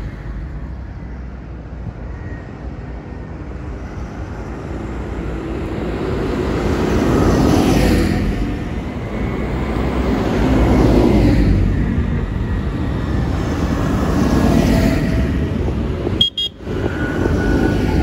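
Large farm tractors' diesel engines passing close by one after another, each swelling as it comes past and fading away, with tyre noise on the tarmac. The sound cuts out briefly near the end.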